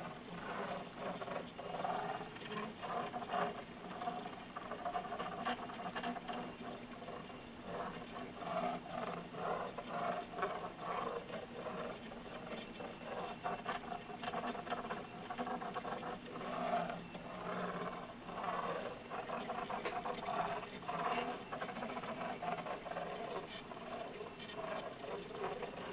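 Homemade pen-plotter drawing machine running: its drive motors hum and whine in steady pitched tones that swell and fade in short spurts as the pen arm moves, fast on straight lines and slow on curves.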